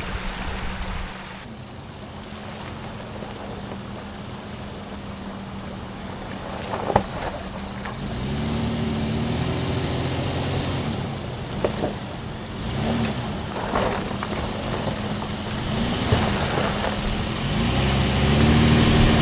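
Off-road vehicle's engine pulling through snow and slush on a trail crossing. It runs steadily at first, then from about eight seconds in the revs rise and fall again and again under load. There is a sharp knock a little before that.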